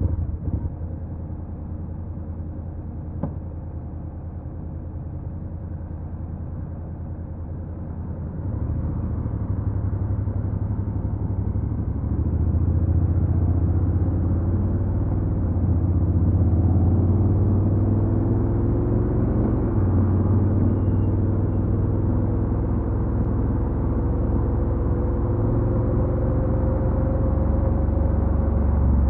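Honda NC750X motorcycle's parallel-twin engine running with a low rumble while the bike is ridden. It gets louder about a third of the way in and again shortly after, then its pitch climbs slowly as the bike gathers speed. A couple of brief clicks come near the start.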